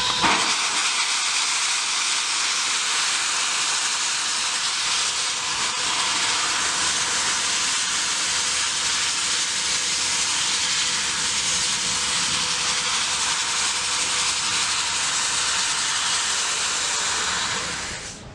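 Nickel Plate Road 765, a 2-8-4 Berkshire steam locomotive, standing and venting steam in a loud, steady hiss that surges just after the start and fades away near the end.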